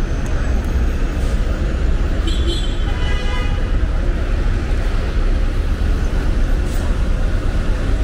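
Steady road traffic on a busy city street, with cars, a box van and double-decker buses passing and a heavy low rumble. A brief high whine sounds about two and a half seconds in.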